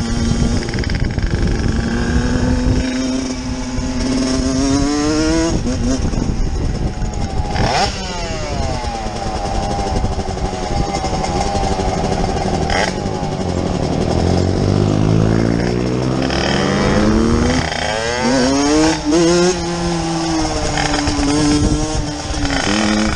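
Motorcycle engines on the move: a dirt bike's engine revs up and drops back at each gear change, again and again, with another motorcycle's engine running alongside, its pitch crossing the first.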